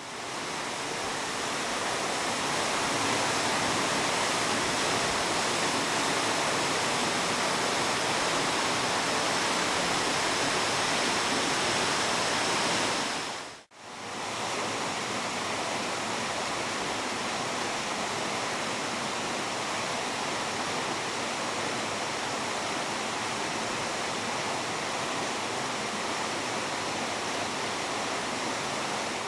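Steady rush of a waterfall pouring into its pool. It fades out and straight back in about 14 seconds in, a little quieter afterward.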